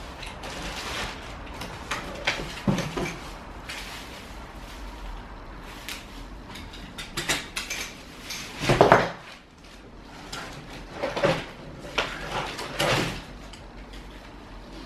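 Packaging being handled during an unboxing: plastic and foil wrapping rustling and crinkling, cardboard scraping, and pushchair parts knocking against the box, with the loudest bump about nine seconds in.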